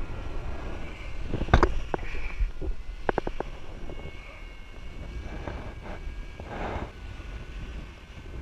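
Wind rushing over the microphone of a paraglider pilot falling under a collapsed wing, heard as a steady low rumble. Sharp clicks come about a second and a half in, then a quick run of four clicks about three seconds in. A faint thin steady high tone sits underneath.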